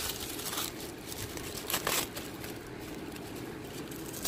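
Paper and packaging being handled: soft rustling, with brief scuffs about half a second in and again near two seconds.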